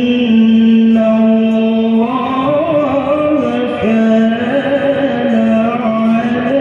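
A male qari reciting the Qur'an in the melodic tilawah style into a handheld microphone. He holds a long steady note, rises into a wavering, ornamented phrase about two seconds in, and settles onto another long held note.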